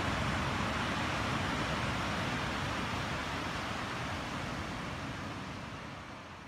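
Steady rushing noise of the sea surf and wind at the beach, fading out over the last couple of seconds.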